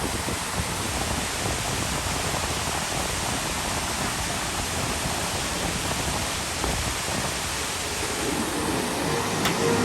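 Waterfall's steady rush of falling water, an even wash of noise. Music fades in faintly near the end.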